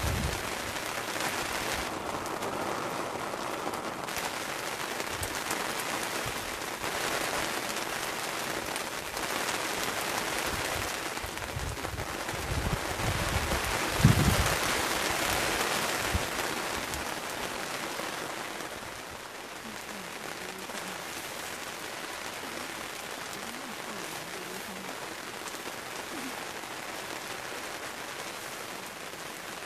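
Steady rain pattering, heavier through the first half and easing off about two-thirds of the way in. A single sharp knock about halfway through.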